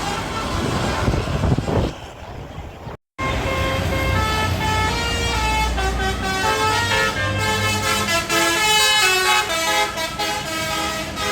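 A bus goes past with a loud rush of engine and road noise. Then, after a cut, a 'telolet basuri' multi-tone musical bus horn plays a quick melody of short stepped notes over a low engine rumble.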